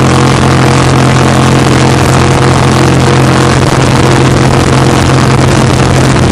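Racing jet boat's engine running hard at a steady, unchanging pitch, very loud as heard on board the boat.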